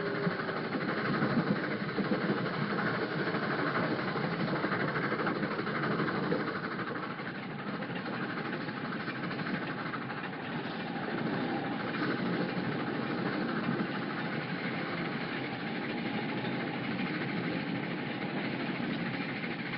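A train running on the rails: a steady rumble and rattle, a little louder for the first six seconds or so, then even.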